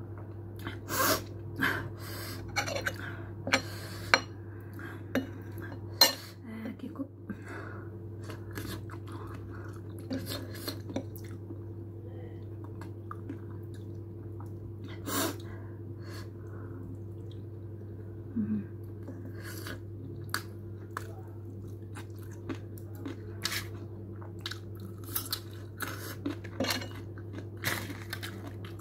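A person eating shawarma close to the microphone: chewing, with scattered sharp clinks of cutlery and dishes, over a steady low hum.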